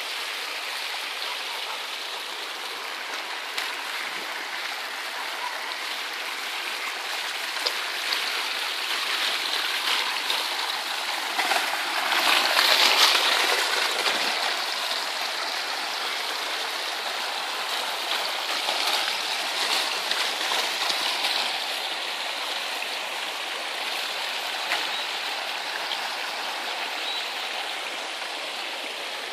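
Rainwater runoff streaming and gurgling along the ruts of a washed-out road, a steady rush that swells loudest for a couple of seconds near the middle.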